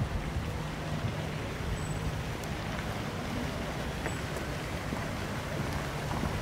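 Steady outdoor city ambience: a wash of distant traffic with a low engine-like hum that fades in and out.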